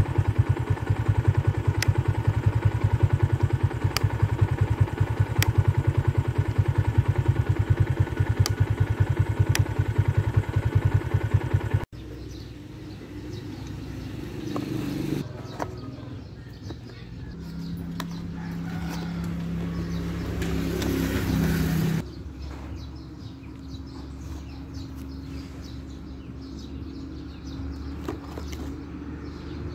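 Motorcycle engine running under way, loud and evenly pulsing, with a few sharp ticks. About twelve seconds in it cuts off suddenly to much quieter background sound, with a steady low hum for a few seconds past the middle.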